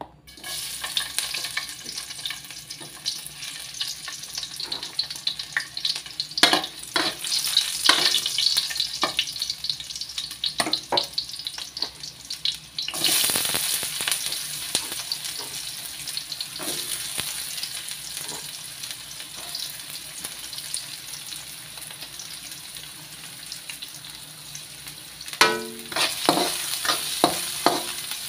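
Chopped onion frying in hot oil in a metal wok: a steady sizzle that starts as the pieces go in and jumps louder about halfway through. Near the end a metal spatula scrapes and taps against the wok as the onion is stirred.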